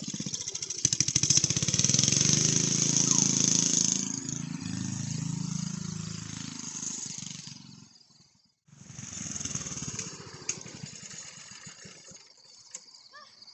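Go-kart's 8 hp Briggs & Stratton single-cylinder engine running hard close by, then fading as the kart pulls away. After a sudden break about eight seconds in, it is heard again and dies down toward the end as the kart slows.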